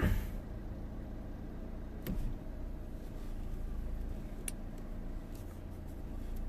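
2014 Renault Trafic's 1.6 dCi diesel engine idling steadily, with a short knock at the start and another about two seconds in.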